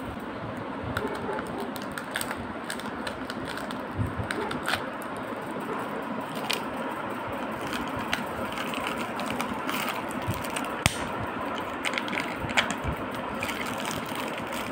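Foil wrapper of a chocolate egg crinkling and crackling as it is peeled off by hand, with scattered small clicks and snaps of the plastic, over a steady background noise.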